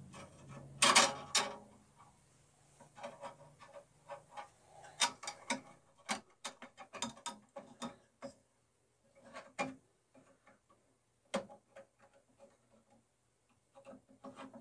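Irregular light clicks, taps and rubbing as a bandsaw blade is worked onto the wheels of a Craftsman 10-inch three-wheel benchtop bandsaw, its steel band and the saw's plastic frame knocking under the hands. Two louder knocks come about a second in, and a single sharp click later on.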